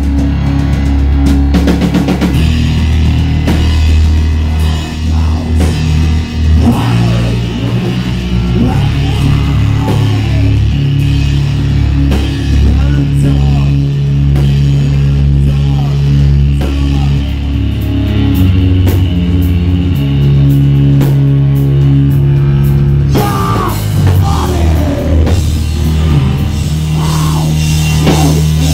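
Live heavy rock band playing loud: distorted, bass-heavy riffs of long held low notes over drums, with sliding higher sounds coming in over the last few seconds.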